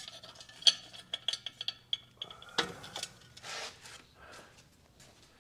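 Lug nuts clinking as they are handled: a quick run of light metallic clinks and ticks, then a louder knock about two and a half seconds in.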